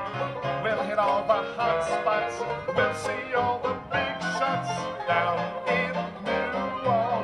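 Banjo band playing a bluegrass-style tune, with plucked banjo and guitar.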